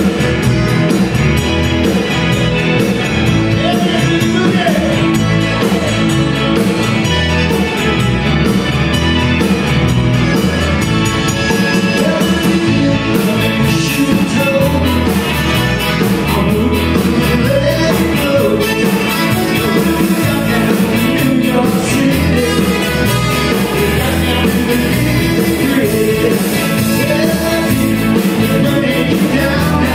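Live Tex-Mex band playing an upbeat rock number, with electric guitar, drums, keyboard, trumpet and accordion, and a lead vocal over the band.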